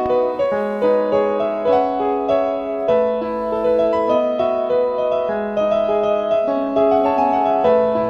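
Background piano music: a gentle melody of held notes changing every half second or so.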